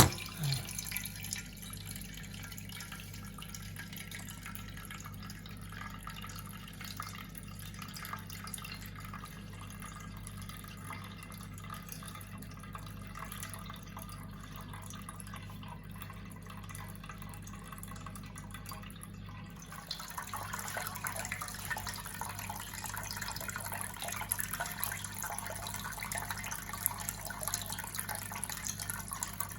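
Water trickling and dripping out of a washing machine's partly unscrewed drain filter into a tray: the drum is still full because the machine won't drain (F05 error). About two-thirds of the way through the flow becomes louder.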